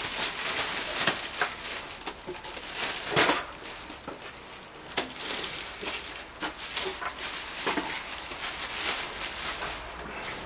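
Plastic packaging wrap being pulled off a new welding machine, crinkling and crackling irregularly with sharp clicks scattered through it.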